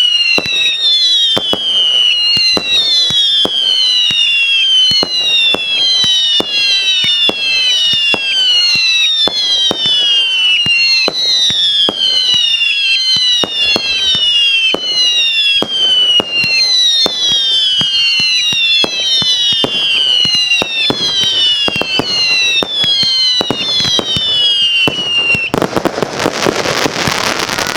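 Fireworks: a rapid barrage of whistling shots, each whistle falling in pitch, over a dense string of sharp bangs. About 25 seconds in, the whistles stop and a thick crackling burst takes over.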